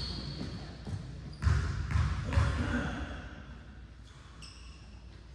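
Basketball game sounds in a large gymnasium: a ball bouncing on the hardwood floor, with a few thuds about a second and a half in, then quieter play with short high sneaker squeaks near the end.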